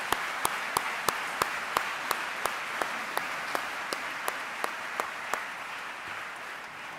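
Audience applauding, with one person's louder claps standing out at about three a second until about five seconds in.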